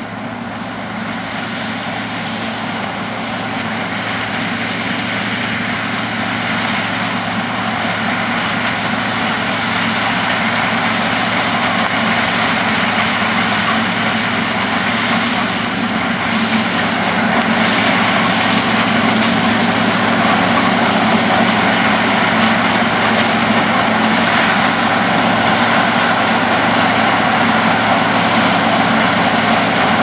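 Sugarcane harvester and haul-out tractor working together: a steady diesel engine hum under the dense noise of cane being chopped and elevated into the bin. It grows louder through the clip.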